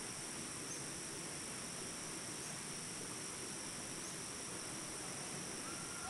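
Steady high-pitched insect chorus, with three faint short chirps over it.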